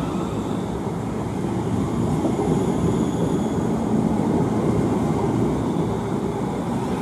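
Siemens Class 350 Desiro electric multiple unit running past along the platform: a steady rumble of wheels on rail as its carriages go by, the rear carriage passing near the end.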